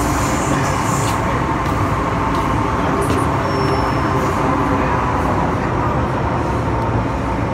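Steady running noise inside a Hong Kong MTR M-Train carriage in motion: wheels on rail with a steady electric hum.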